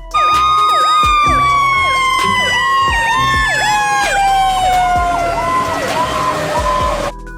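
Fire truck siren sounding: a long tone slowly falling in pitch with a quick rising-and-falling wail repeating over it, cutting off suddenly near the end.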